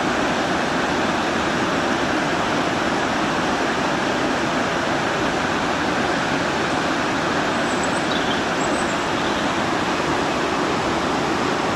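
Small waterfall in full flood, swollen by heavy overnight rain: a steady, unbroken rush of falling water.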